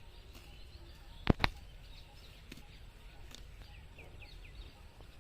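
Two sharp knocks in quick succession a little over a second in, then faint short high bird chirps over a low outdoor background.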